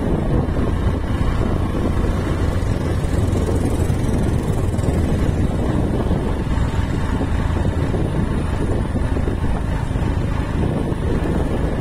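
Steady running noise from a moving vehicle on the road, with wind noise on the microphone.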